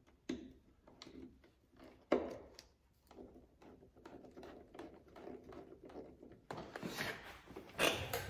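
Light rustling and small knocks of a fabric door storage bag being handled and fitted against a UTV's hard plastic door panel, with a sharper knock about two seconds in and a louder burst of handling near the end.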